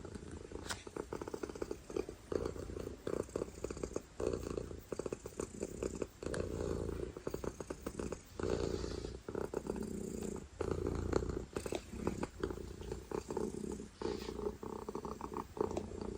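Domestic cat purring loudly, a rapid low rumble that comes in swells of a second or two with short breaks between them.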